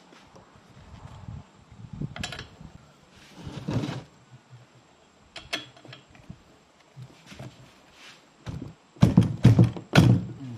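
Metal spark plug spanner clicking and knocking against a Stihl FR 3000 backpack brush cutter's engine as it is fitted over the spark plug and worked to loosen it, with a few louder thunks near the end. The plug is stuck tight.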